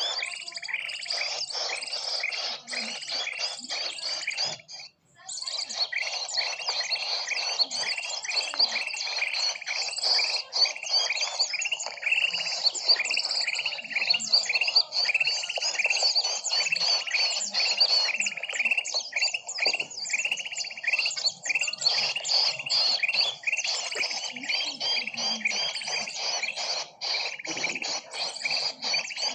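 Bird-lure (pikat) recording of many small birds chirping rapidly and continuously, a dense overlapping chatter, broken by a short gap about five seconds in.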